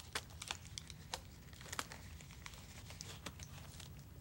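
Disposable examination gloves being pulled on and fitted over the hands: faint, irregular crinkling with small sharp clicks and snaps of the thin glove material.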